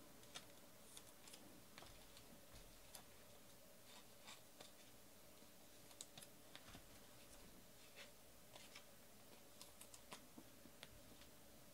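Near silence: room tone with faint, irregular light clicks and ticks scattered throughout.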